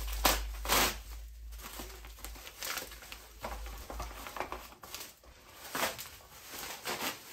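Plastic packaging wrap crinkling and rustling in irregular bursts as a wrapped plastic body panel is lifted and handled, loudest in the first second.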